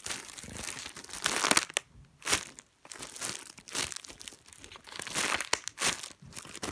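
Plastic Ziploc bag and homemade paper squishy crinkling as they are handled and turned over, in irregular bursts, loudest about a second and a half in.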